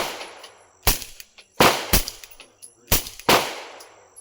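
Suppressed HK P30 9 mm pistol with an OSS RAD9 silencer firing a string of shots, each a sharp crack with a short echoing tail. There are about six reports, some in quick pairs about a third of a second apart.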